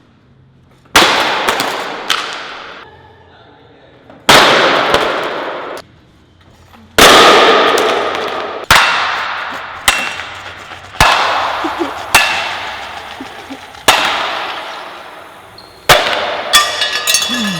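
A large fidget-spinner skateboard being smashed, about eleven hard hits, each a sharp crash followed by a clanging, rattling tail that dies away over a second or two as the board breaks into pieces.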